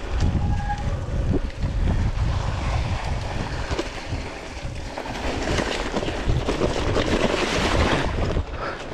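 Wind buffeting the camera microphone on a mountain bike descent, over knobby tyres rolling on a dirt and gravel trail; the tyre and gravel hiss grows louder for a few seconds in the second half.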